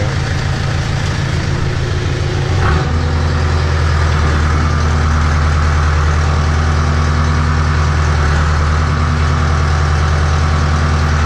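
John Deere 310D backhoe's diesel engine running; about three seconds in the engine note steps up and gets louder, then holds steady at the higher speed as the machine is put to work to try the re-greased boom.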